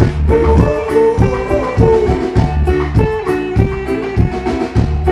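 Reggae/ragga band music without vocals: guitar and bass over a steady drum beat.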